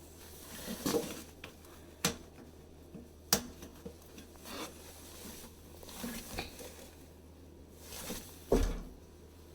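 Hard clicks, knocks and rustling of parts and tools being handled, with three sharp knocks standing out, about two seconds in, a little past three seconds and near the end.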